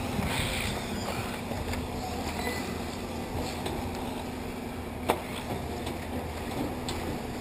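1/8-scale electric RC off-road buggies running on a dirt track, heard as a steady low rumble and hiss, with one sharp knock about five seconds in.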